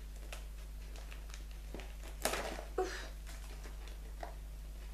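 Faint rustling and handling of gift wrapping and small packages, with a sharper crinkle about two seconds in, over a steady low hum.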